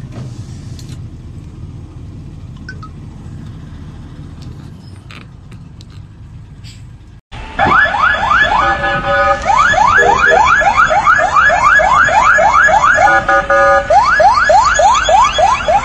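Low street and traffic rumble, then after a sudden cut about seven seconds in, a fire engine siren sounding loudly in fast rising sweeps, about three a second.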